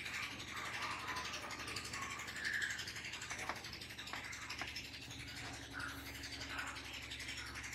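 Whiteboard marker faintly squeaking and scratching as words are written on the board, with a few small clicks, over a low steady background hum.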